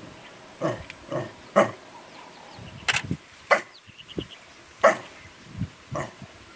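African wild dogs and hyenas in a fight, giving about eight short, sharp yelps and barks at irregular intervals, with a quick run of high twittering notes about four seconds in.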